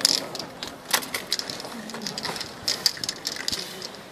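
Aerosol spray-paint can hissing in several short bursts, with quick clicks and scraping of card on the painting between them.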